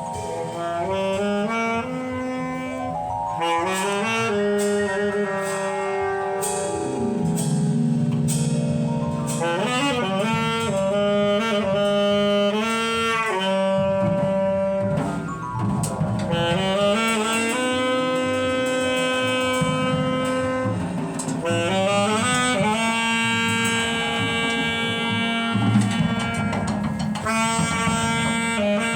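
Jazz music with a saxophone playing a lead melody of held notes, some sliding in pitch, over a band accompaniment with light percussion.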